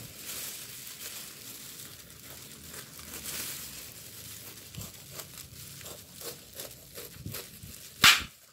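Large kitchen knife slicing the rough rind off a Cayenne pineapple, crackly cutting strokes mixed with the crinkle of plastic food-handling gloves. A single loud, sharp crack about eight seconds in as a strip of rind is cut away.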